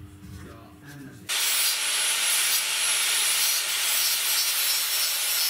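Angle grinder grinding steel, starting abruptly about a second in and then running steadily.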